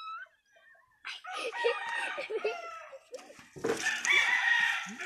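Rooster crowing twice, two long crows one after the other, the second louder.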